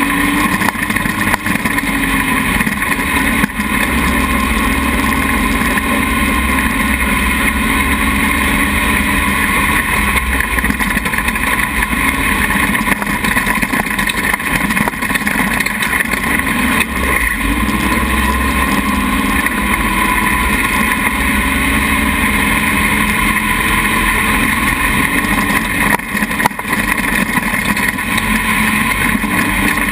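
Dune buggy engine running loud and steady while driving over sand, its note rising and falling a few times as the throttle changes.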